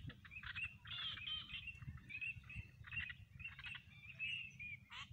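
A flock of ducks calling on the water: a dense, unbroken run of short overlapping calls and chirps.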